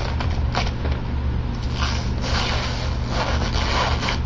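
Clear plastic packaging rustling and crinkling as it is handled, in several bursts, over a steady low hum.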